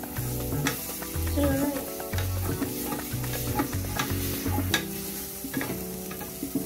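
Wooden spatula stirring and scraping onions, chillies and curry leaves frying in oil in an aluminium pressure cooker: a steady sizzle with irregular knocks and scrapes of the spatula against the pot.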